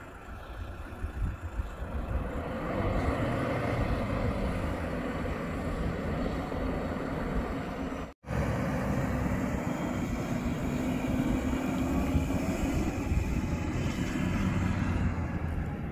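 Toyota Fortuner SUV's engine running under load as it drives through and climbs soft sand. The sound drops out for an instant about eight seconds in.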